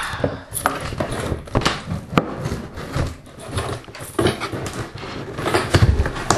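Cardboard box being handled and opened by hand: irregular knocks, taps and scraping of the cardboard flaps.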